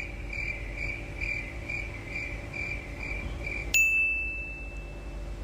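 Cricket chirping steadily, about two chirps a second, cut off suddenly by a single bright ding about four seconds in that rings on for about a second.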